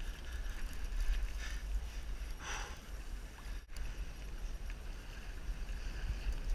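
Sea water sloshing and slapping against a kayak's hull under a steady low rumble, with a short splash about two and a half seconds in.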